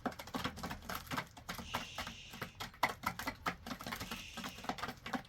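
Chickens pecking and scratching, a rapid irregular patter of small taps, with two short stretches of faint high hiss around the middle.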